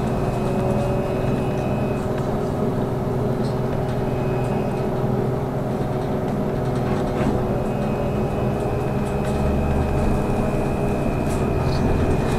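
Trolleybus in motion, heard from inside: tyre and road rumble under steady electric whines from its drive. A high whine breaks off about two seconds in and comes back past the halfway point, and the low rumble grows louder near the end.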